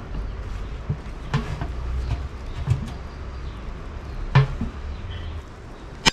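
Hands kneading wheat flour dough in a plastic mixing bowl: soft squishing and rubbing with a few dull knocks, the loudest about four seconds in, then a sharp click right at the end.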